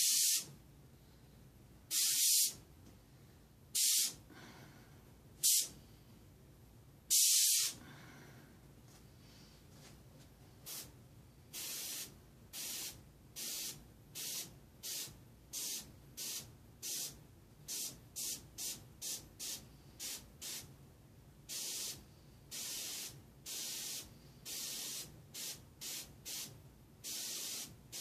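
Airbrush spraying paint in short hissing bursts as the trigger is pressed and released: five louder puffs in the first eight seconds, then from about ten seconds in a quicker run of shorter, softer bursts, one or two a second.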